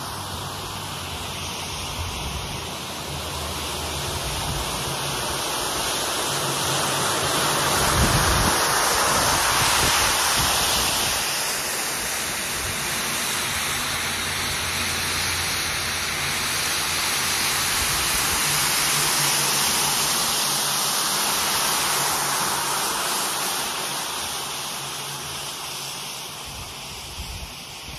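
Rotary floor machine running, its brush scrubbing foamed shampoo into a rug: a steady motor hum under a wet swishing hiss. It swells louder twice as the machine sweeps past and grows fainter near the end.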